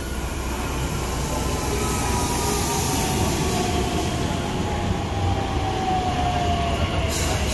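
Train running with a steady rumble and a whine that falls slowly in pitch, with a brief hiss near the end.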